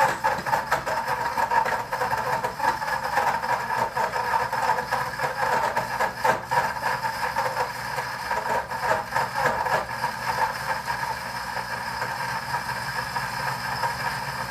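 Deluxe cooking blender's motor running at speed 3, grinding chunks of hard parmesan cheese. Hard pieces clatter against the jar for the first ten seconds or so, then it settles into a steadier whir as the cheese is ground fine.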